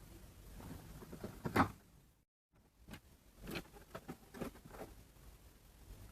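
Irregular handling noises: light scrapes and clicks, loudest about a second and a half in, broken by a brief cut to total silence, then several more scrapes.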